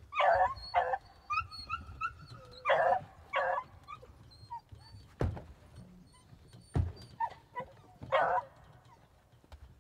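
Beagles barking and yelping in short bursts, with a high whine held for about a second between the barks. Two sharp knocks come about five and seven seconds in.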